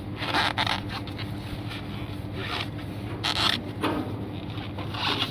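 A few short scraping noises, each about a third of a second long, over a steady low hum.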